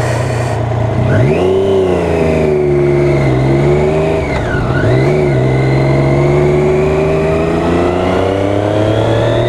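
Triumph Daytona 675R's three-cylinder engine pulling under acceleration. The revs climb about a second in, drop sharply at a gear change about halfway, then build steadily again.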